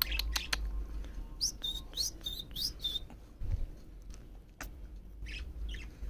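Budgerigar chick chirping: a quick group of about six short, high chirps, some rising, about a second and a half in, and a few fainter chirps near the end.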